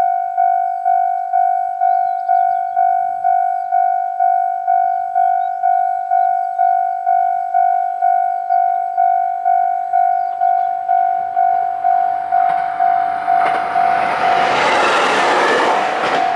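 Level crossing warning bell ringing steadily at a little over two strokes a second. From about twelve seconds in, a JR Hokkaido H100 series 'DECMO' diesel-electric railcar passes over the crossing. Its running and wheel noise grows quickly and is loudest near the end, and the bell keeps ringing through it.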